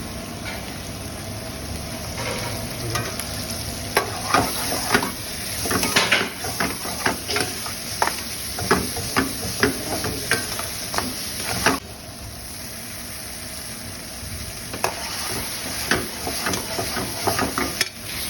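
Gravy sizzling in a pot while being stirred, with a run of sharp scrapes and knocks against the pot over a steady frying hiss; the scraping thins out about two-thirds of the way through.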